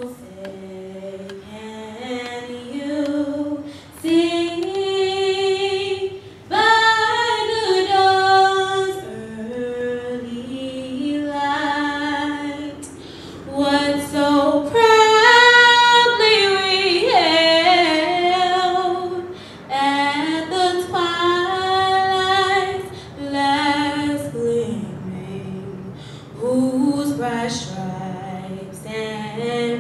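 A woman singing a national anthem solo and unaccompanied into a microphone, in long held phrases with short pauses for breath.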